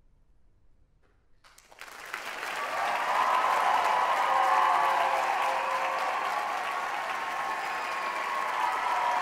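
Audience applause breaking out after a second or so of near silence at the end of a choral piece, swelling within about a second and then holding steady.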